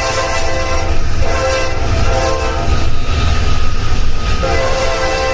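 A train horn sounding in long held blasts with short breaks between them, over the low rumble of a train running on the rails.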